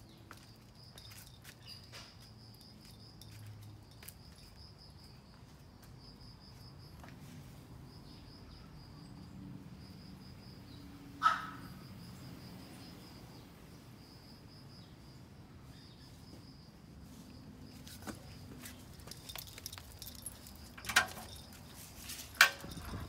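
Faint, steady, high-pitched insect trill, pulsing evenly throughout, with scattered light ticks of a small dog's steps on brick paving. A short, louder sound cuts in about halfway through, and two sharp knocks come near the end.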